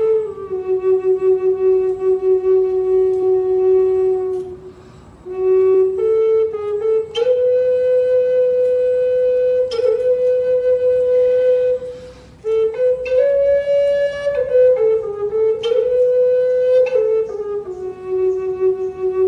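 Native American flute in Aeolian G, tuned to 432 Hz, playing a slow melody of long held notes that step up and down. It breaks off twice briefly, as if for breath.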